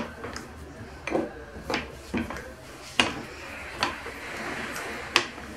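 Metal rolling pin rolling dough thin on a floured wooden counter: about seven irregular sharp knocks and clicks as it is pushed back and forth, with a soft rolling rush between them.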